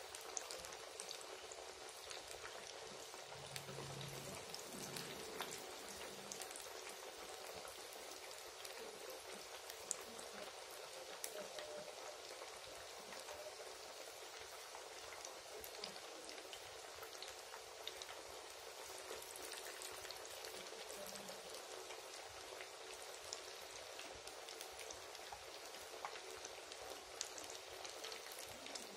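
Banana flower vadas deep-frying in hot oil: a steady, faint sizzle with scattered small pops and crackles as the fritters cook towards golden brown.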